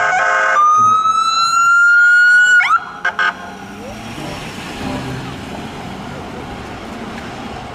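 Ambulance siren: a quick pulsing burst, then a long slow rising wail and a fast sweep, breaking off about three seconds in. Steady street traffic noise follows.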